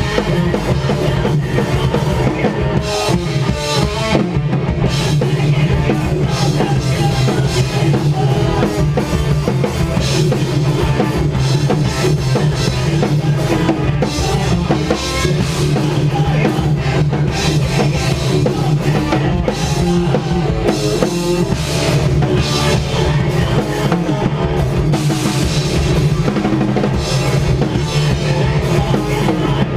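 A post-hardcore band playing live: loud, continuous heavy rock music driven by a drum kit with bass drum.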